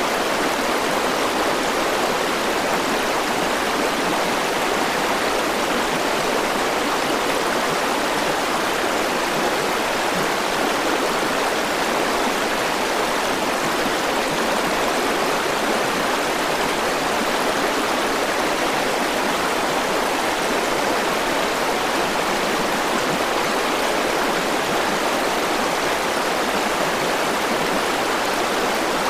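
River water flowing steadily, a continuous rushing sound with no breaks or changes.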